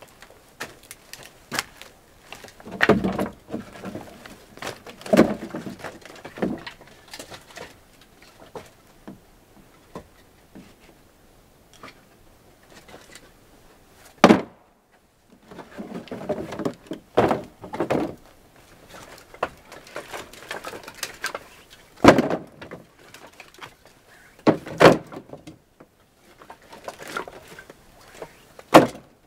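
Wooden knocks and clatter, as of firewood logs being picked up and dropped or stacked in a woodshed. They come in irregular bunches of several thuds with short quiet spells between, the sharpest single knock about fourteen seconds in.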